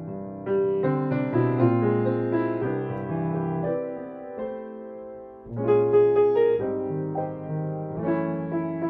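Solo acoustic piano played slowly in chords, a jazz ballad, with a softer passage midway and a louder chord struck about five and a half seconds in.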